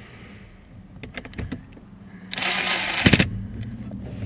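Cordless drill driving a blower motor mounting screw, running for about a second and ending in a quick rattle of knocks.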